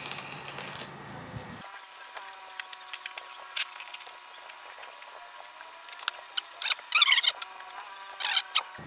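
Bubble wrap and packing tape crackling and crinkling as a parcel is cut open with a knife and unwrapped, with scattered sharp clicks and louder crinkling bursts about seven and eight seconds in.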